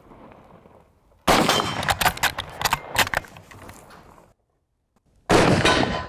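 A bolt-action rifle fires once about a second in. A string of sharper cracks and echoes trails off over the next few seconds. A brief loud noise follows near the end.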